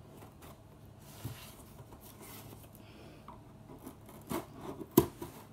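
Scissors cutting along the packing tape on a cardboard box, a quiet scraping and rubbing. A few sharper clicks come near the end, the loudest about five seconds in.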